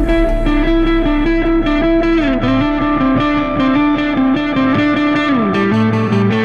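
Background rock music led by a distorted electric guitar riff, with the notes sliding down in pitch twice, about two and a half and five and a half seconds in.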